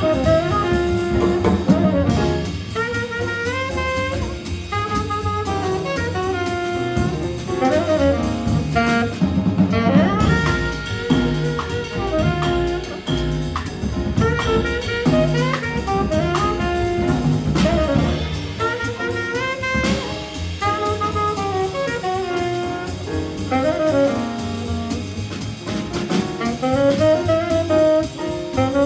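Live jazz combo playing: a saxophone leads the melody over grand piano, upright bass and drum kit with ride cymbal.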